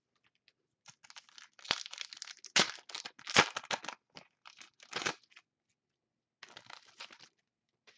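Foil wrapper of a 2012 Panini Contenders football card pack being torn open and crinkled by hand, in irregular crackling bursts. The loudest tearing comes about two and a half to three and a half seconds in, with a brief pause and a softer crinkle later.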